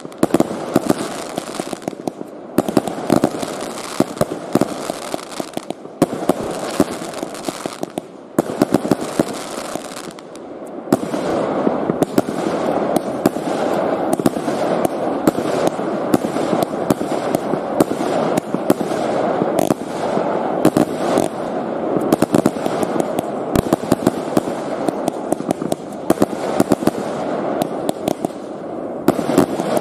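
Loud, dense crackling and popping made of many rapid clicks, with a few brief breaks in the first ten seconds and steadier after that.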